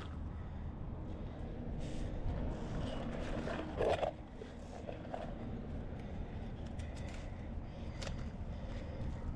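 Wind rumbling on the microphone, with scattered clicks and knocks of handling as a fish is pulled up on a rope and dealt with on the concrete; one brief louder noise about four seconds in.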